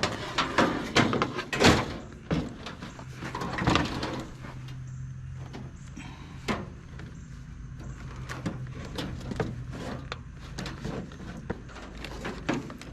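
Knocks and clatter from a scrapped built-in wall oven unit being handled, densest and loudest in the first few seconds with the biggest bang just under two seconds in, then scattered lighter clicks. A steady low hum runs underneath.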